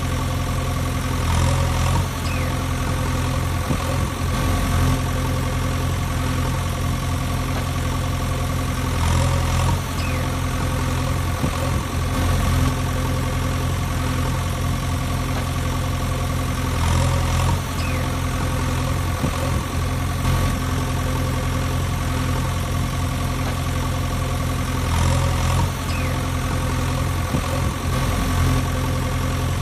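Steady engine idling sound, a recorded sound effect that repeats itself about every eight seconds as a loop.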